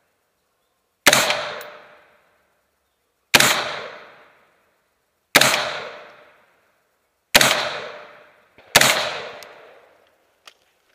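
Five rifle shots, spaced about two seconds apart with the last two closer together, each trailing off over about a second, then a couple of faint clicks near the end.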